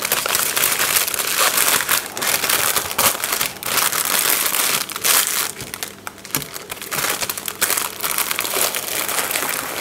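Clear plastic bags crinkling and rustling as they are handled and packed away, a busy run of crackles with a brief lull about six seconds in.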